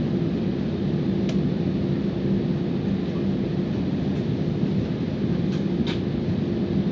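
Jet airliner's engines running at low power, heard from inside the cabin as a steady roar with a constant low hum, while the aircraft taxis before takeoff. A couple of faint clicks come about a second in and near the end.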